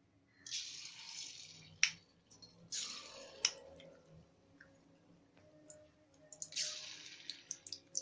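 Marinated chicken pieces dropped into hot oil in a kadai, deep-frying: three separate bursts of sizzling, each dying down within a second or so, with a couple of sharp clicks between them.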